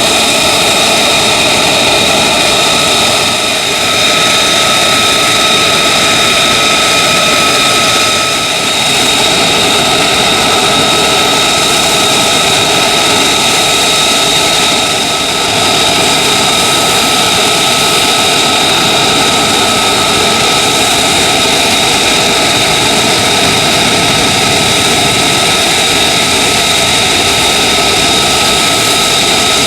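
F-35A Lightning II's single Pratt & Whitney F135 turbofan running loud and steady, with several high whines holding an even pitch.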